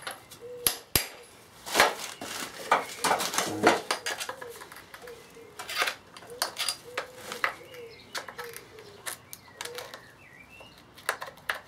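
Irregular sharp metallic taps and clinks: a hammer striking a socket to drive a circlip down into its groove on a VW Beetle gearbox drive shaft, then a screwdriver clicking against the circlip and casing. The hardest taps come in the first few seconds.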